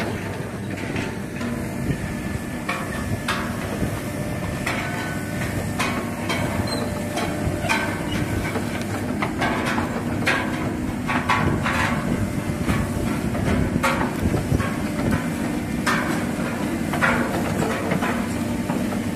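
Tracked hydraulic excavator's diesel engine running steadily under load as it lifts a steel pipe slung from its bucket, with frequent irregular metal clanks and knocks.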